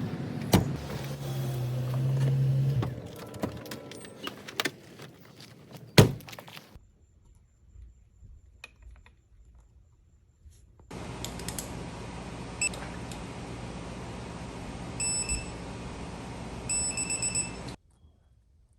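Metal tool clicks and clanks, with two sharp knocks, as a ratchet works a bolt. After a pause, a high electronic beeper sounds once and then in two short runs over a steady hiss that cuts off suddenly.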